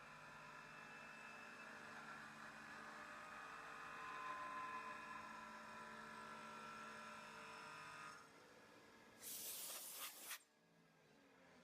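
VFD-driven CNC mill spindle motor running with a steady multi-tone hum and whine that stops about eight seconds in, followed by a short loud hiss lasting about a second.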